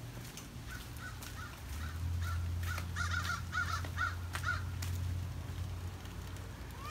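A bird calling outdoors: a quick run of short, repeated calls, loudest in the middle. A low steady rumble comes in under the calls and fades before the end, and a single rising-then-falling call follows at the very end.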